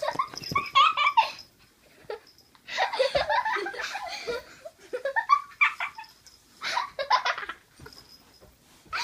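Bursts of laughter mixed with the play noises of two wrestling dachshunds, coming in four or five spells with short pauses between.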